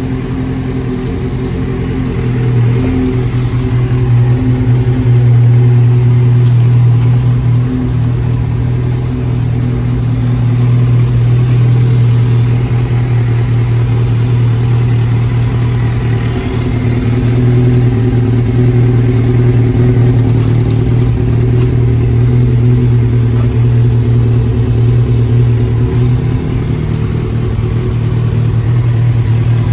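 A 1994 Kawasaki ZZ-R400 (ZX400N) four-cylinder engine idling steadily through a BEET aftermarket muffler, with only small swells in level.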